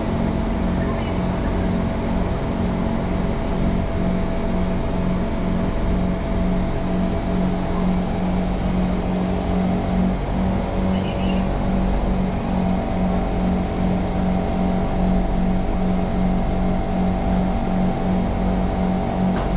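Singapore MRT train running at steady speed: an even rumble with a constant electric motor whine and a low pulse repeating about twice a second.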